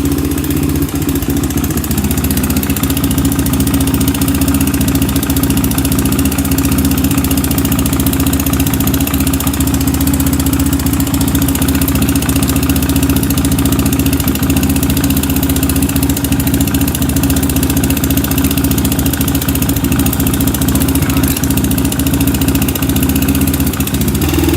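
Honda 400EX quad's air-cooled single-cylinder four-stroke engine idling steadily as it warms up. The engine had run with its oil bone dry and smokes badly once warm, which the owner puts down to a worn top end.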